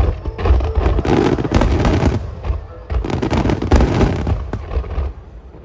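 Aerial fireworks bursting in quick succession, many sharp reports and crackles overlapping, dying away about five seconds in.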